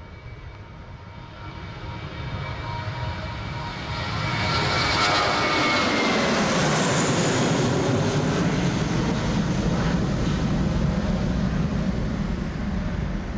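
Airbus A320 jet airliner passing low overhead on approach, landing gear down. Its engine noise swells over the first few seconds; whining tones fall in pitch as it passes about five seconds in, then a steady low rumble that eases off near the end.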